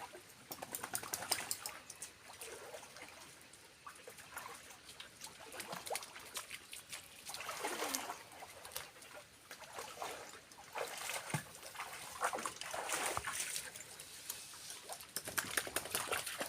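Shallow water at a small waterfall splashing and trickling, with uneven bursts of splashing.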